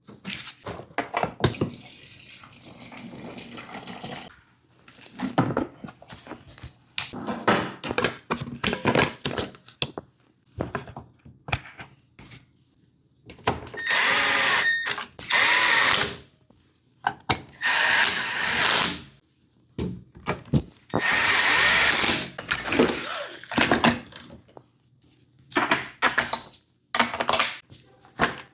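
A handheld power tool, such as a drill/driver, run in several short bursts of a second or two each, its motor pitch rising and falling. Between the bursts come knocks and clatter of tools and parts being handled.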